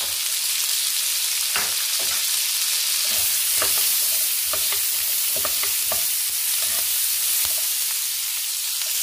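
Chopped onions and crushed garlic sizzling in butter and oil in a nonstick frying pan, a steady hiss, as they are sautéed. From about a second and a half in, a slotted spatula stirs them, scraping and tapping against the pan at irregular intervals, several times a second at most.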